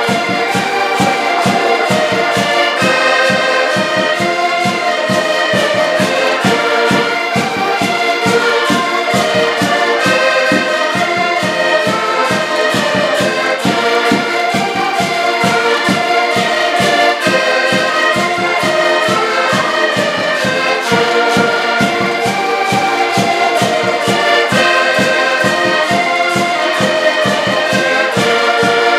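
Several diatonic button accordions playing a lively traditional Portuguese dance tune together: full, steady chords over an even, quick beat.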